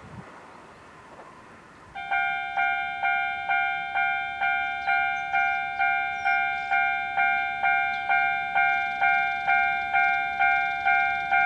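Japanese railway level-crossing alarm starting about two seconds in and ringing steadily at about two strokes a second, the warning that a train is approaching and the crossing is closing. Before it starts there is only a faint steady background noise.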